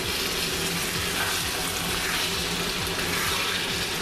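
Chopped onions, pine nuts and tuna frying in oil in a pan, sizzling steadily while a wooden spoon stirs them and breaks up the tuna.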